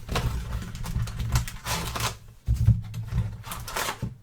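Packing tape being torn and peeled off a sealed cardboard box of trading cards, with several crackling rips and cardboard rustling.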